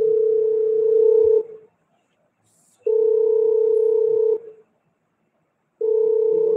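An electronic tone beeping at one steady mid pitch: three long beeps, each about a second and a half, coming about every three seconds with silence between.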